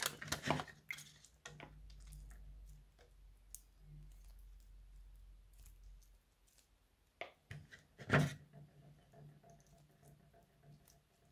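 Quiet handling of a sticky lump of slime in a small plastic tub of water: soft squishes and scattered small clicks, with two sharper clicks about seven and eight seconds in.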